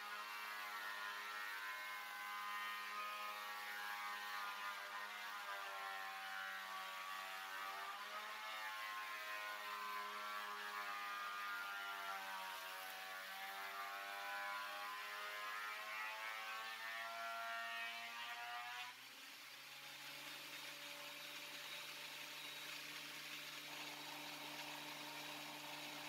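WEN benchtop thickness planer cutting lumber, its motor whine wavering in pitch as the cut loads it. About two-thirds of the way through, the board clears the cutterhead, and the planer runs on empty with a quieter, steady hum.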